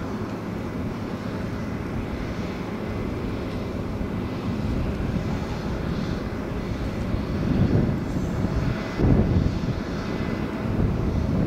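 Steady low rumble of distant engine noise, swelling briefly a few times in the second half.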